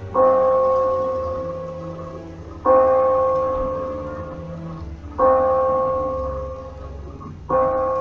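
A large tower bell tolling, struck four times about two and a half seconds apart, each stroke ringing on and fading away before the next.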